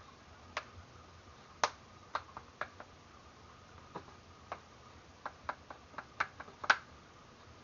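Back cover of a Fusion 5 tablet being pressed on, its clips snapping into place around the edge: a run of sharp, irregular clicks, several close together toward the end, the loudest near the end.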